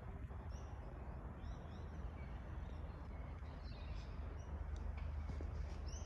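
Outdoor ambience: a low steady rumble with a few short, high bird chirps scattered through.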